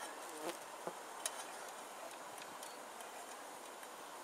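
Steady hiss of a gas canister camp stove's burner turned up high under an empty pan, with a few light clicks and taps, the sharpest about a second in.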